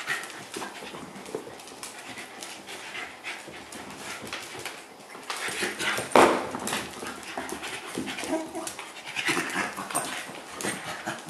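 Two dachshunds play-fighting, scuffling about on a wooden floor, with a loud burst of noise about six seconds in.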